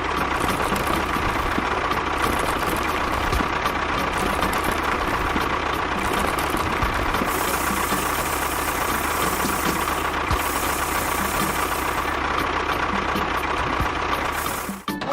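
A motor running steadily with a constant whine, like an engine idling; it drops out briefly near the end.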